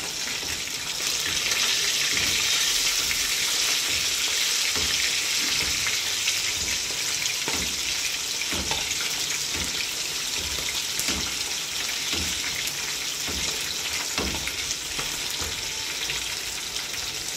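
Two whole fish frying in hot oil in a frying pan, a steady sizzle with frequent sharp crackles of spattering oil as hot oil is spooned over them.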